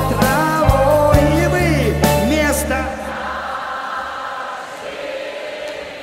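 Live performance of a Soviet pop song by a vocal-instrumental ensemble: singing over a full band. About halfway through, the bass and drums drop out, leaving a quieter held passage.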